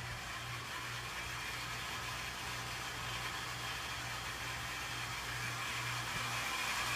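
1-horsepower cast-iron shallow well jet pump running steadily, a motor hum under a hiss, growing slightly louder as it builds pressure toward the pressure switch's cut-out.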